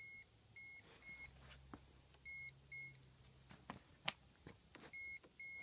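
Non-contact voltage tester beeping intermittently in short, high, paired chirps as it is moved along a wire, with a few faint handling clicks. It is picking up voltage on a neutral near a splice, a reading that is not a true, constant 120 V hot.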